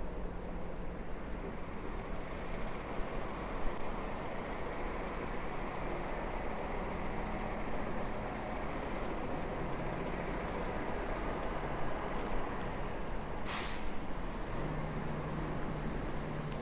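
Steady city street traffic noise, with a short, sharp hiss from a heavy vehicle's air brake about thirteen seconds in, then a low engine hum near the end.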